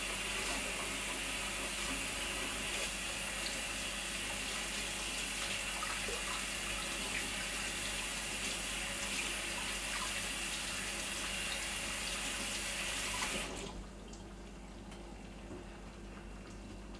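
Tap running steadily into a sink as hands are washed under it, shut off suddenly about thirteen seconds in.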